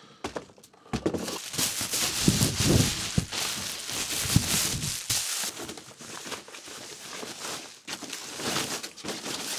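Bubble wrap crinkling and rustling as it is pulled and handled off a guitar, loudest in the first half, then a softer rustle of the inner wrapping.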